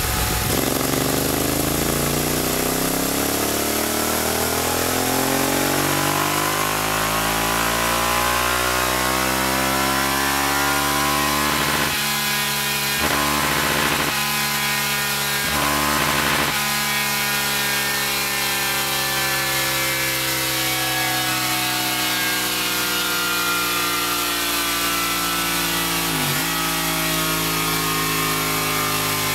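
Yamaha TDM900 parallel-twin engine, fitted with an Over aftermarket exhaust and a tuned engine kit, running under load on a chassis dyno. The revs climb steadily in pitch over the first dozen seconds and are then held high, with a few brief rough breaks around the middle and a short dip near the end.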